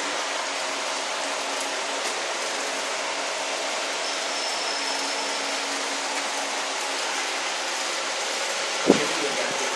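Aerosol-can leak-test water-bath machine running with a steady, even hiss and a faint hum. A single sharp knock comes about nine seconds in.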